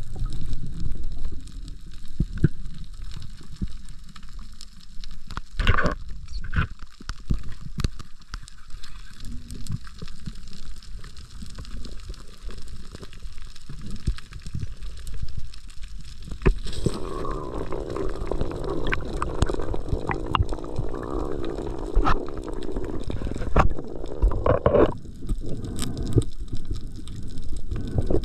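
Underwater noise picked up by a submerged camera: a steady low rumble of moving water with scattered clicks, and a stretch of denser bubbling, gurgling hiss from about the middle to near the end.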